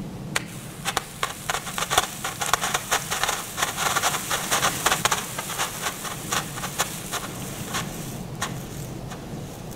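An old 1986 firework barrage cake firing: a rapid string of sharp pops and crackles that comes thickest in the middle, then thins to a few last cracks and stops.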